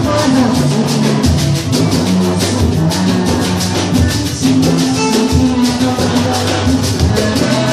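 Live batucada: a Brazilian samba percussion group playing a dense, steady groove of drum hits over low, sustained drum tones.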